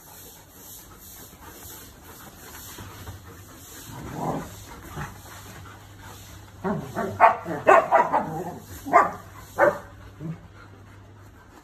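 Standard poodles barking and yipping: one lower bark a few seconds in, then a run of short, sharp barks in the second half.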